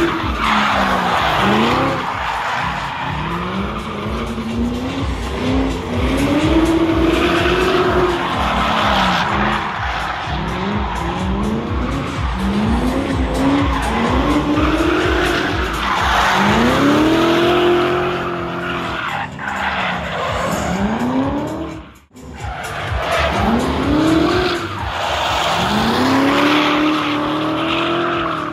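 Drift car's engine revving up and down again and again while its tyres squeal through long slides. The sound drops out briefly about three-quarters of the way through.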